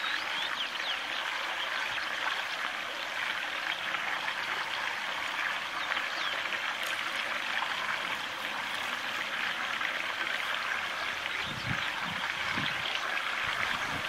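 Steady rush of running water, like a small stream or trickle, with faint short high chirps scattered through it. A few low bumps come near the end.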